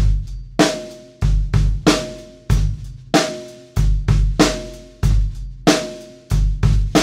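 A drum kit played with sticks in a steady groove: deep bass drum hits, often in pairs, under snare and tom strokes, with cymbals ringing over the strikes. A last hit lands at the very end and rings on.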